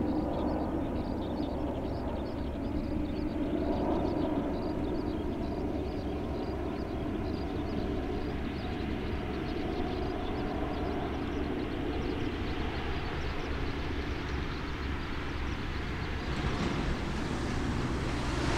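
Distant jet engine noise of a Thai Airways Airbus A330 passing high overhead: a steady rumble with a low hum running through it. A rushing hiss swells near the end.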